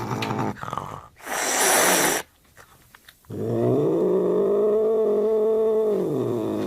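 Angry domestic cat: a sharp hiss about a second in, a short pause, then a long, low, steady growling yowl lasting about three seconds.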